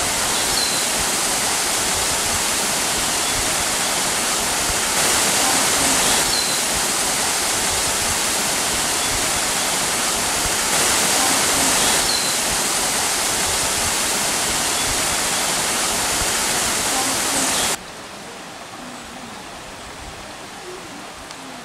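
Rushing water: a steady, loud, even wash, slightly louder twice. It cuts off suddenly near the end, leaving a much quieter hiss.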